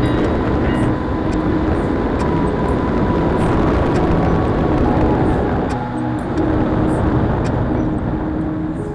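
HobbyZone AeroScout S2 electric RC plane's motor and propeller running in flight under heavy noise, with a held tone that glides slightly in pitch. Background music plays faintly underneath.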